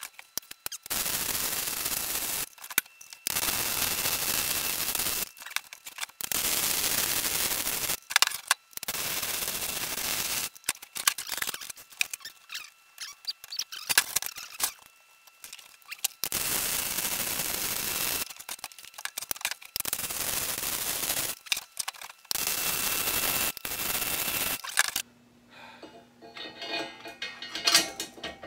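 Electric arc welding on steel: a series of short weld runs, each about two seconds of steady crackling hiss, starting and stopping abruptly with brief pauses between. Near the end, light clinks and knocks of metal being handled.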